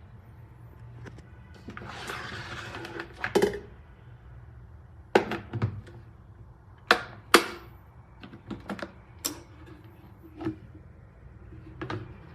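Sharp clicks and knocks of hard objects being handled, about eight of them at uneven intervals, over a faint steady hum, with a short rustling noise about two seconds in.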